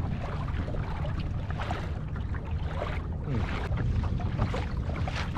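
Water splashing and sloshing around a kayak under way, with wind rumbling on the microphone.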